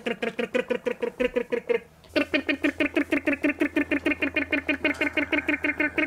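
Toy tractor's engine sound effect, a fast, even putt-putt chugging at about eight beats a second. It stops briefly about two seconds in, then starts again with a low hum under it.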